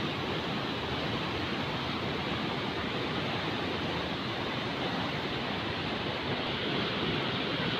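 Floodwater pouring over an overflowing dam spillway and churning below it, a steady rushing noise.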